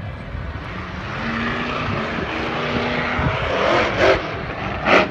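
A large vehicle engine running, growing louder as it comes closer, with a couple of short loud bursts near the end.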